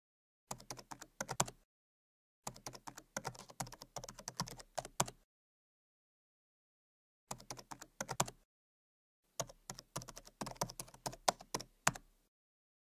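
Typing on a keyboard: four bursts of rapid, irregular key clicks separated by dead silence.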